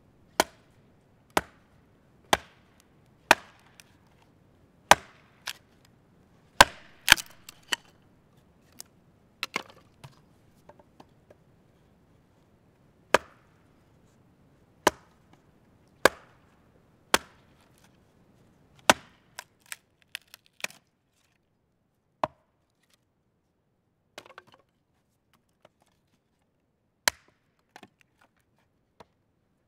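Helko Werk Black Forest Woodworker axe chopping and splitting a short log on a wooden chopping block: sharp single strikes about a second apart, a pause, then a second run of five strikes. After that come a few lighter, scattered knocks.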